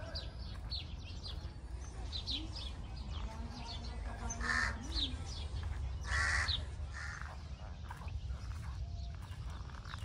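Small birds chirping in quick high notes, with two loud harsh crow caws about four and a half and six seconds in. A steady low rumble runs underneath.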